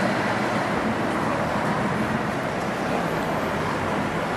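Steady street traffic noise: a continuous even rumble and hiss with no distinct events.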